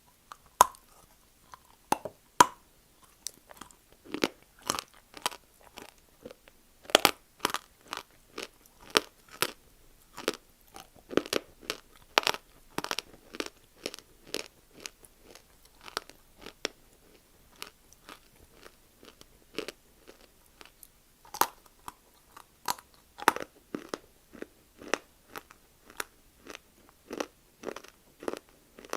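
Close-up crunching and chewing of dry multani mitti (Fuller's earth clay): sharp, crisp crunches, a little under two a second, as the clay is bitten and chewed.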